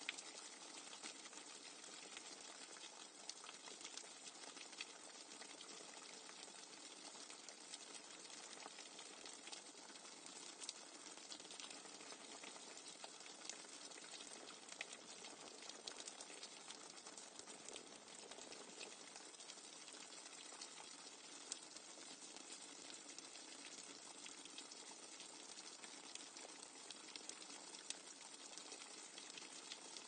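Rainwater dripping fast and hard: a dense, steady patter of many small drops, with fine ticks of individual drops throughout.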